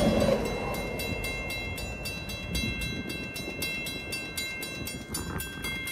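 Freight train rolling through a level crossing, its rumble falling away as it passes, while the crossing bell rings with rapid, steady strikes.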